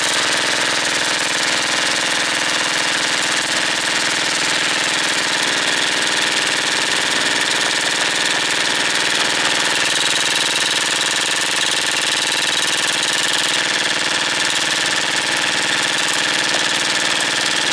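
Electric airsoft rifle fed from a 1200-round drum magazine firing on full auto in one long unbroken burst, a steady fast mechanical rattle of the motor-driven gearbox cycling.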